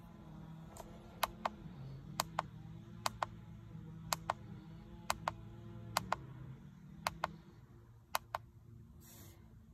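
Buttons pressed on a Foxwell BT-715 battery analyzer's keypad: a pair of sharp clicks, press and release, about once a second, eight times over. A faint low hum sits underneath and fades out about three-quarters of the way through.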